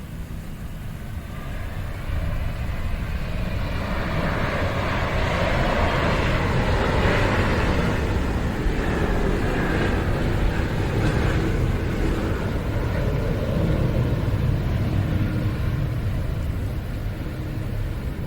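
Jet airliner's engines rumbling and rushing as it passes close by. The sound swells over the first several seconds, peaks near the middle and then eases slowly, with a deep rumble throughout.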